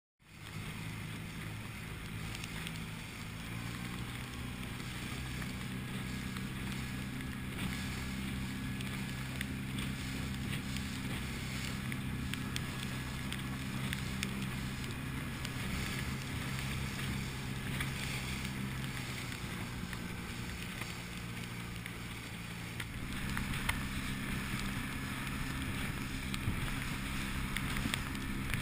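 Outboard motor of an inflatable boat running under way. Its engine note holds steady and shifts pitch a few times as the throttle changes. Wind and water rush underneath, with occasional knocks of the hull on the chop.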